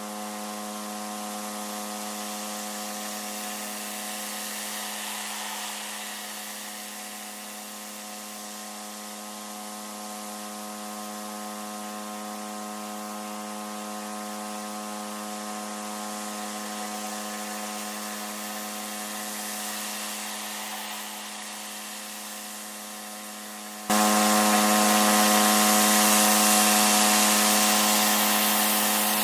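Pressure washer running steadily, its surface cleaner spraying water across block paving: a constant hum under a wide hiss. About 24 s in it suddenly gets louder.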